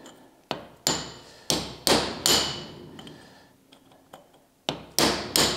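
Hammer blows on the steel top ring of a large bottle jack, each strike ringing metallically, struck to try to break the seized ring loose. There are five quick blows, a pause of about two seconds, then three more near the end.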